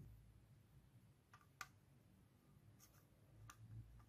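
Near silence with a handful of faint ticks and scratches: a HANDSKIT 60 W soldering iron's tip touching and rubbing solder joints on a circuit board as it melts the solder.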